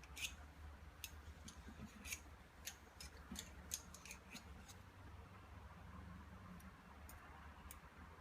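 Light clicks and taps from a pistol and its parts being handled during cleaning: a quick run of them over the first four seconds or so, then only a few scattered ticks, over a low steady hum.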